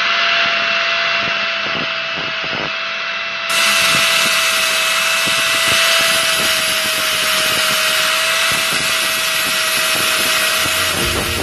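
Handheld electric angle grinder running at a steady high whine. Its abrasive disc grinds and polishes rust off a steel motorcycle side stand, rasping and scratching each time it meets the metal.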